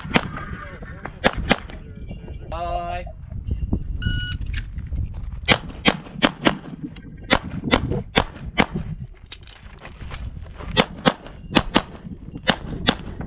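CZ Shadow 2 pistol fired in quick pairs of shots, string after string with short pauses between them. A brief high steady tone sounds about four seconds in.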